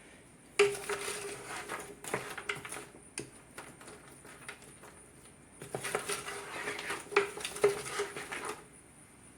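A utensil scraping and clinking against a multi-cooker's metal pot as vegetables sautéing in butter are stirred, in two bouts of about three seconds each with a short pause between.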